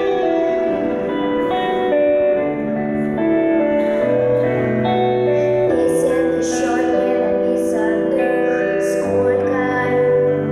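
Instrumental backing track playing over the stage speakers, then a girl's live solo vocal comes in about six seconds in.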